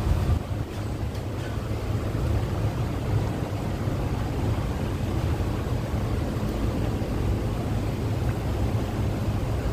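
Steady low rumble inside the passenger car of an MTR East Rail Line R-Train.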